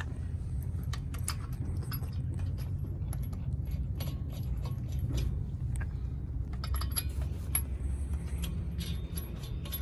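Small metal clinks and rattles of tools and brake parts being handled, scattered irregularly over a steady low rumble.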